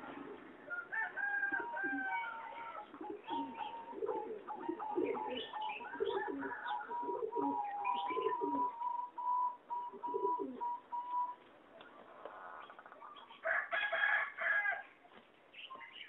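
Singing zebra dove of a competition-bred line cooing: a long run of short, quick notes, with a louder burst of calls near the end.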